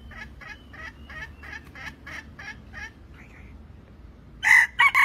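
White-eared red junglefowl rooster: a quick run of short calls, about three a second, for the first three seconds, then a loud crow starting near the end, broken into short clipped syllables.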